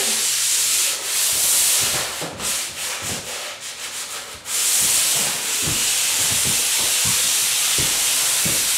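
SmartStick drywall angle sander on a pole working a ceiling inside corner, sandpaper scratching back and forth over the dried joint compound. It runs in steady strokes, turns into shorter broken strokes with brief pauses in the middle, then goes steady again.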